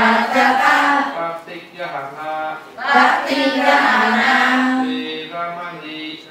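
Group of Buddhist nuns chanting a liturgy in unison from their texts: women's voices in long, sustained sung phrases, with a brief pause for breath about three seconds in.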